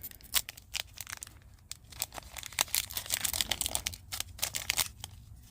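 A Gundam trading card booster pack's foil wrapper being torn open and crinkled in the hands: a dense, irregular run of crackles.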